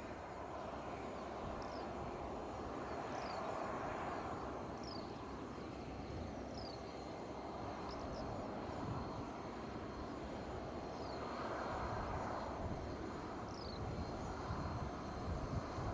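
Cessna Citation CJ4 business jet's two turbofan engines running at low taxi power, a steady distant rush that swells and eases gently. Faint short falling chirps repeat every second or two above it.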